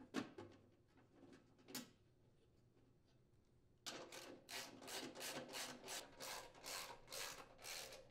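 A socket ratchet clicks in quick, regular strokes, about four a second, as it drives in a mounting bolt on the snowblower's metal frame cover. Before it come a couple of light taps as the bolt and cover are set in place.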